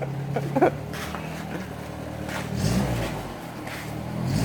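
A motor vehicle engine revving up briefly twice, over a steady low hum.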